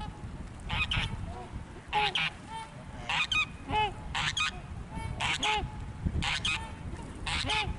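A flock of geese honking, one or two calls about every second, with several birds calling over one another, above a low rumble.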